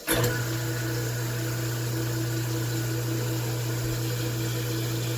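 Newly installed kitchen garbage disposal switched on, starting abruptly and running with a steady motor hum while tap water runs into the sink. It is a first test run of the new unit.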